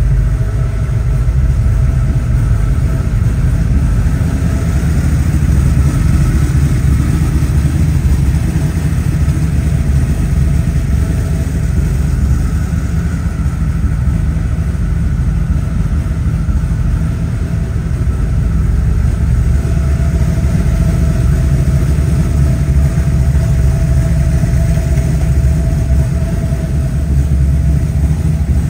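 V8 engine of a GT40 replica, a 351 Ford V8 with a 427 rotating assembly, idling steadily with a deep, even rumble.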